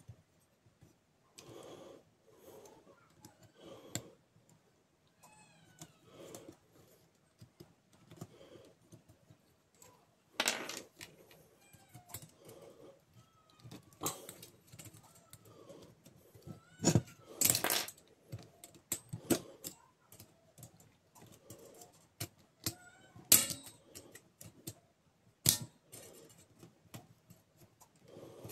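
Irregular clicks, taps and knocks of metal and plastic parts as a laser-printer fuser unit is handled and taken apart by hand, some knocks much louder than others. A few faint high squeaks come in among them.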